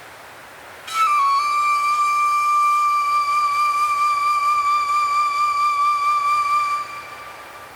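Ambient music: a woodwind holds one long, slightly wavering note for about six seconds, starting about a second in, over a soft steady hiss of wind sound design.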